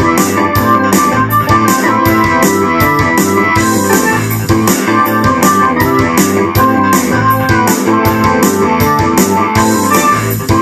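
Ensoniq SD-1 synthesizer keyboard playing a rock keyboard part, with chords and moving notes over a steady beat of ticks about three a second.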